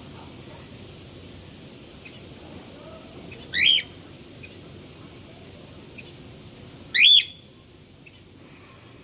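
Cockatiel calling: two loud, short rising whistles about three and a half seconds apart, with a faint chirp or two in between.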